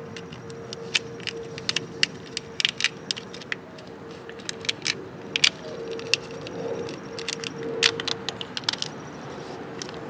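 Black corrugated plastic split-loom tubing clicking and crackling in irregular sharp bursts as it is handled and worked over the headlight wires, over a faint steady hum.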